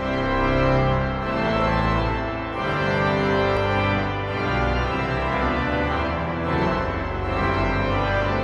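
Steinmeyer pipe organ playing a full-voiced piece: chords moving over long-held low bass notes, starting abruptly and staying at an even, full level.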